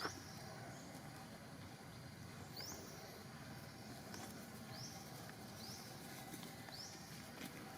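Faint outdoor background with a series of short, high chirps, each rising in pitch, repeated four or five times about a second apart, from an animal calling.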